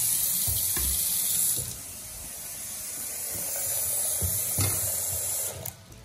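Bathroom sink faucet running into the basin as the water supply comes back on. The flow drops about a second and a half in, builds again, and is shut off sharply near the end, with a few soft knocks along the way.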